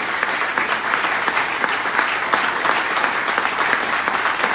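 Audience applauding: steady, dense hand clapping.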